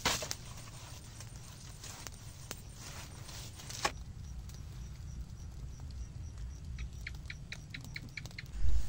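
Burning dry grass and brush crackling, with scattered sharp pops and a short hissing flare about four seconds in, over a low rumble of wind on the microphone. Near the end comes a quick run of about eight high chirps, then a heavy low thump.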